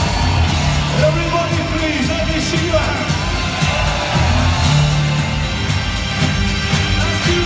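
Live rock band playing through a concert PA: drums, bass and electric guitars, with a sung vocal line over them.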